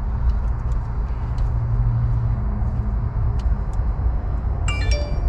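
Old tow truck's engine idling, a steady low rumble heard inside the cab, with a brief high ringing tone near the end.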